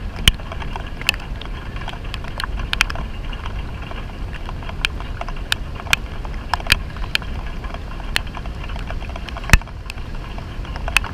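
Heavy rain falling on a river surface: a steady low rumble with many irregular sharp ticks of nearby drops, the loudest about a third of a second in and again near the end.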